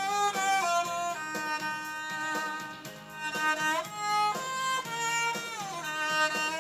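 Violin played with a mute, a slow legato melody with slides between some notes, over a lower sustained accompaniment.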